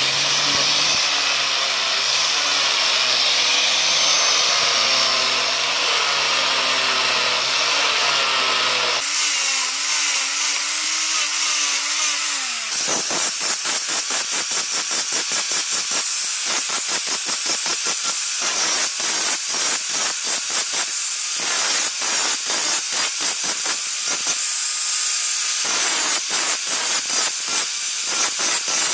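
Angle grinder with a sanding disc running at speed while a strip of bone is ground and shaped against it into a needle. For the first dozen seconds the motor hum wavers in pitch; from about halfway through it turns into a rapid, pulsing rasp of bone on the spinning disc.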